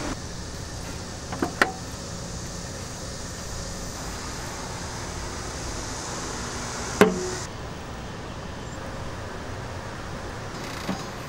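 Steady background noise with a few sharp knocks: a quick pair about one and a half seconds in, a louder single knock about seven seconds in, and a faint one near the end.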